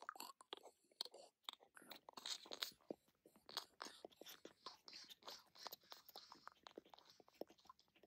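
Faint, squishy bug-crawling sound effect: a wet, crunchy, chewing-like run of quick irregular clicks and crackles, with a few louder snaps a little after two seconds in.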